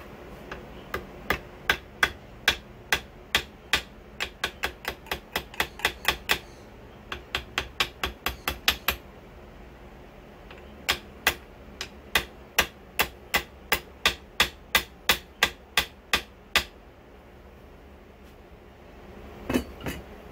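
Small ball-peen hammer tapping on a metal tube held against an outboard lower unit's water pump plate. The sharp taps come in three runs of about two to four a second, with short breaks after about six and nine seconds. A duller double knock follows near the end.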